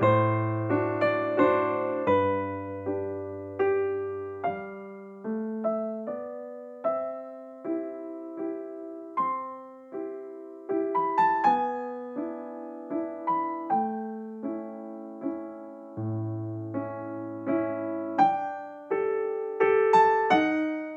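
Background piano music: a slow melody of single struck notes, each dying away, with low bass notes underneath at the start and again near the end.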